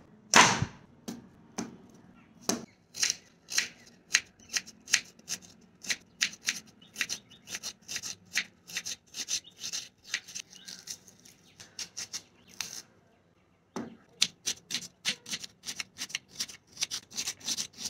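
Knife slicing through red onions on a cutting board: a steady run of crisp cuts, about three a second, quickening toward the end, with a short pause about thirteen seconds in.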